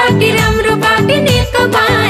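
Nepali political campaign song music with a steady beat and a gliding melody line.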